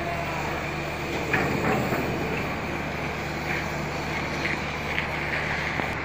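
A heavy engine running steadily with a low, even drone, with a few faint metallic knocks from work on the steel deck.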